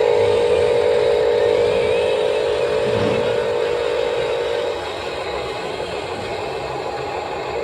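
Electric hydraulic pump of a radio-controlled construction model whining steadily under load, dropping away about two thirds of the way through, over a constant mechanical hiss and rattle.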